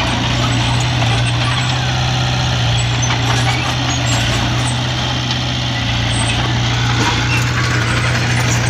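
Small crawler bulldozer's diesel engine running steadily as its blade pushes loose soil, a continuous low drone.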